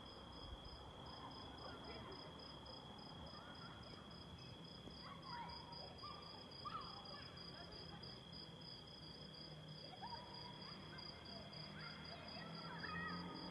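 Faint night ambience: crickets chirping in a steady, even pulse over a constant high insect drone, with a few distant dog barks and yelps in the middle and near the end.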